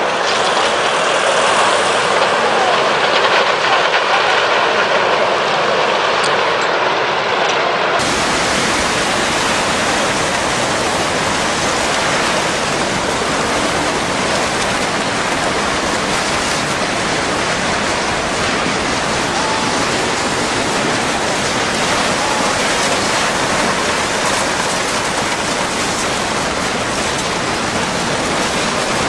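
Tsunami floodwater and debris surging through a town, a loud, steady rushing noise. About eight seconds in it cuts to a closer, fuller rush with a deep rumble underneath.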